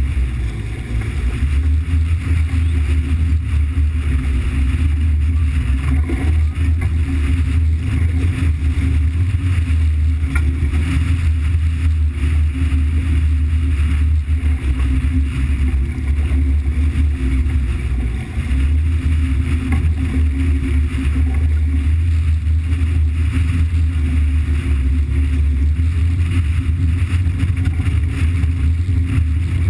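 Steady low drone of a running engine, unchanging in level throughout.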